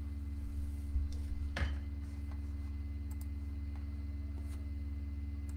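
Room tone: a steady low hum with a few faint clicks and one brief soft sound about a second and a half in.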